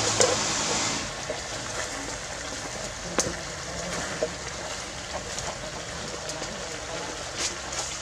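A metal spoon tossing and mixing raw sliced vegetables and chicken pieces with spice paste in a steel pot: a steady rustle of the vegetables, with a few sharp clinks of spoon against pot.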